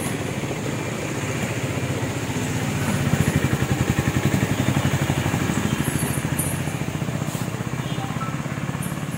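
Motorcycle engine running close by with a fast, even pulsing beat, loudest about three to five seconds in.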